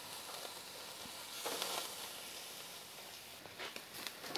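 Beef Denver cut steak sizzling faintly on a gas grill's infrared side burner. The sizzle is briefly louder about a second and a half in, and there are a few light clicks near the end.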